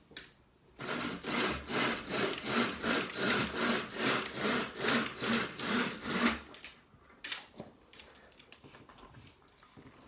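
Window blind being raised by pulling its cord hand over hand: a rhythmic run of scraping pulls, about three a second, that stops about six seconds in.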